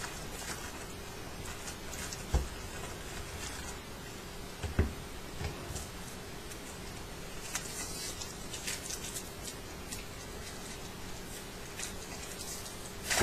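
Trading-card packaging being handled: crinkling and scratching of wrappers and cards, with two dull thumps on a table about two and a half and five seconds in, over a steady low hum.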